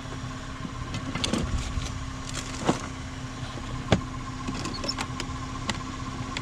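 Plastic rolling toolbox being handled and shut: knocks and clicks of its lid and latches, with two sharp knocks, the louder about four seconds in as the lid closes, over a steady engine hum.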